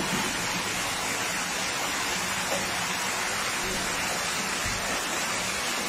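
Muddy floodwater pouring in under a closed door and running across a flooded floor, a steady rushing of water.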